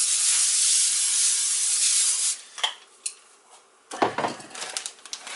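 Aerosol cooking spray (Pam) hissing in one long continuous spray that stops a little over two seconds in, followed by two short puffs. About four seconds in comes a sharp knock, then light clicking and rustling.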